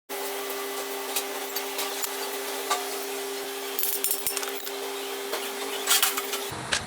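Scattered light clinks and taps of metal tools or parts being handled, over a steady hum that stops suddenly near the end.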